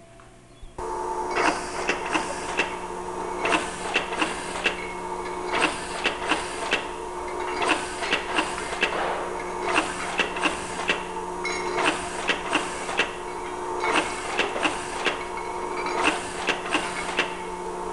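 MultiFill pocket filler running as it doses mushrooms into glass jars: a steady mechanical hum with sharp clicking bursts that repeat in groups of two or three about every two seconds, one group per machine cycle. It starts abruptly about a second in.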